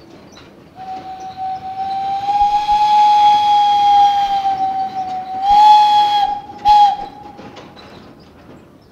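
Narrow-gauge steam locomotive's whistle: one long blast, then two short ones.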